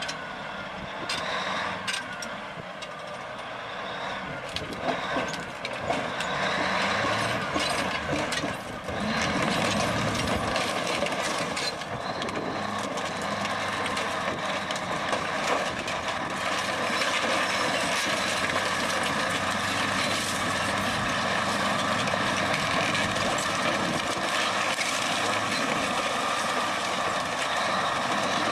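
Heavy machinery running: a steady mechanical din with several held tones and scattered clicks and knocks, getting louder about six seconds in and again about nine seconds in.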